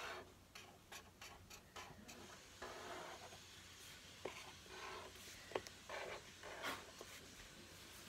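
Faint scratching of a pen drawing on paper in short, quick strokes, with a few brief squeaks in between.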